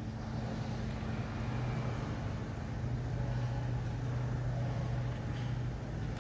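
A steady low hum throughout, with a faint light click about five seconds in as the red safety pin is worked out of the portable lifter's mast.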